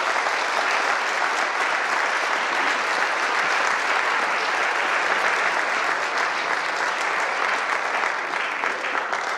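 Audience applauding steadily: a dense patter of many hands clapping at once.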